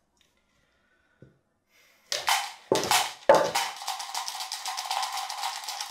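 Dice rattling fast inside a shaken dice cup. It starts about two seconds in with a few sharp knocks, settles into an even rapid rattle, and cuts off suddenly.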